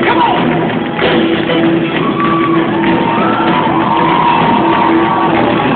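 Live rock band playing loudly on stage: drums, electric guitars and keyboards, with a vocalist over the music.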